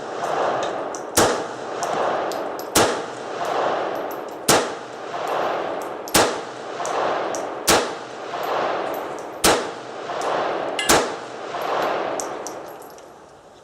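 Bersa .380 ACP semi-automatic pistol fired seven times at a slow, even pace, about one shot every one and a half seconds. Each report is followed by a long ringing echo, and the firing stops about three quarters of the way through.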